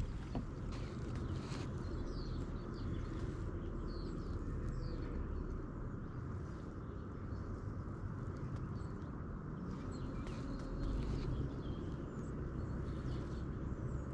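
Quiet outdoor ambience: a steady low rumble with a few faint, scattered bird chirps.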